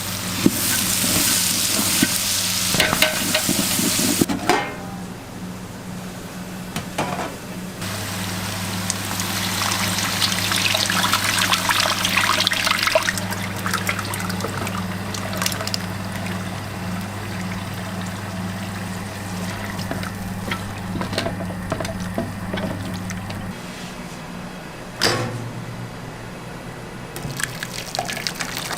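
Street-food kitchen cooking sounds: a hiss that swells and fades over a steady low hum, with a sharp knock about 25 seconds in.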